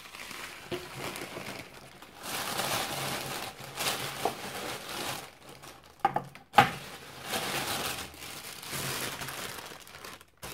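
Plastic bags and food packaging crinkling and rustling in irregular bursts as groceries are rummaged through, with a single sharp knock a little past halfway.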